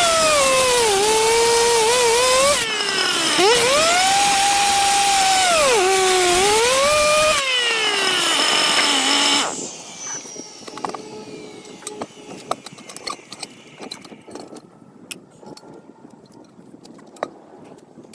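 A power tool's motor runs with a whine that rises and falls in pitch as it is loaded and eased off, breaking briefly twice, then stops about nine seconds in. After that come faint, scattered clicks and knocks.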